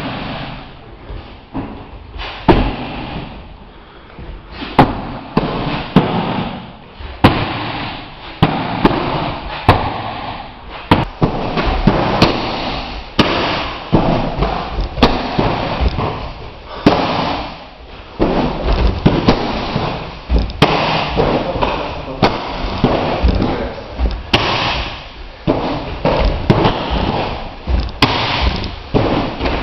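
Kicks landing on handheld kick shields and strike pads: repeated sharp slaps and thuds at an irregular pace, about one every second or two, over a steady background noise.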